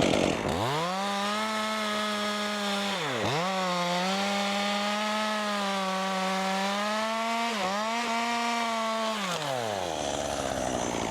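Handheld chainsaw revving up and cutting through the top of a tree, its engine note held high, dipping sharply twice and picking up again, then winding down near the end.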